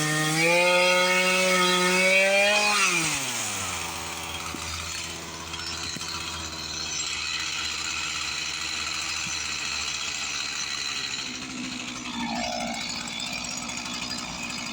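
Chainsaw engine running at high revs, then the throttle released about three seconds in, the pitch sliding down to a steady idle.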